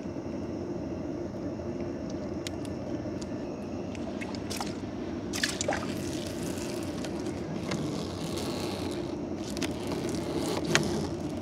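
Steady engine drone, with water splashing, dripping and scraping sounds from about four seconds in.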